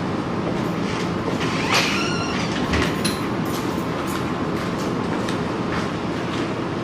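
Steady road and engine noise inside a moving car's cabin, with a few faint ticks.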